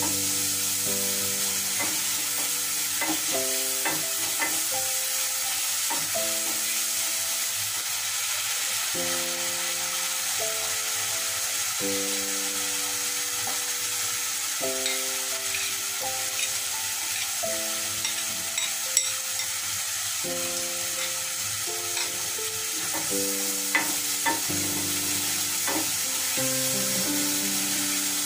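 Ground spices sizzling as they fry in hot oil in an aluminium pan, stirred with a wooden spatula that taps and scrapes the pan now and then. Soft background music of held notes plays underneath.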